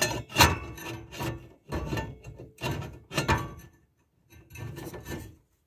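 Metal exhaust pipe and clamp being worked by hand: a series of short, irregular scraping and rubbing strokes, metal sliding and knocking on metal, with a brief pause near the end.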